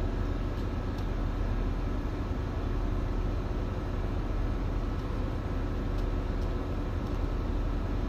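Steady low machinery drone with a constant hum, with a few faint clicks from steel wire rope strands being handled.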